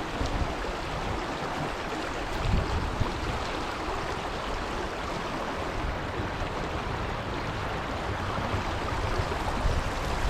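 Small stream running over rocks: a steady rush of flowing water.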